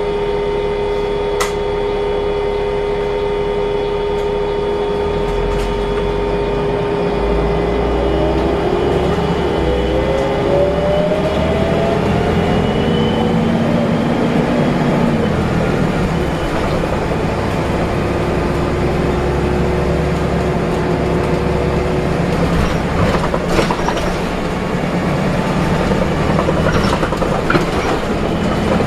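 Interior of a Volvo B7RLE single-decker bus on the move: its engine and driveline running with a steady whining, the 'hoover' sound these buses are known for. The whines rise in pitch about eight to fifteen seconds in as the bus picks up speed, over a deep rumble, with a few short knocks and rattles.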